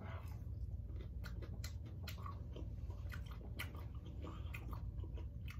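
A person biting into and chewing a battered fried shrimp, with many small, irregular mouth clicks.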